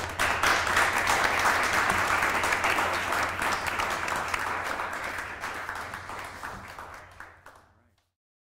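Audience applauding, dying away over the last few seconds until the sound cuts off.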